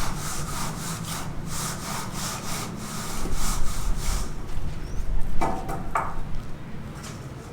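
Hand saw cutting wood in steady back-and-forth strokes, about two a second. The sawing stops about four seconds in, and two short ringing knocks follow, over a steady low hum.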